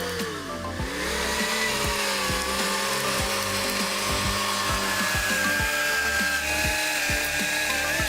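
John Deere 450J crawler bulldozer's engine running under load, its pitch sagging and recovering about half a second in, then holding steady.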